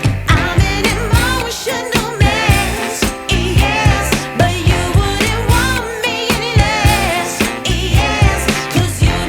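Background music: a pop song with singing over a steady, regular beat.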